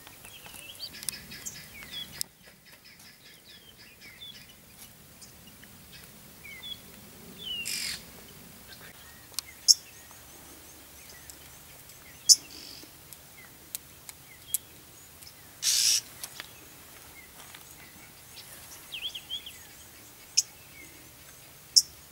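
Wild birds chirping and trilling in the bush, with several single sharp clicks and two short bursts of rustling noise about 8 and 16 seconds in.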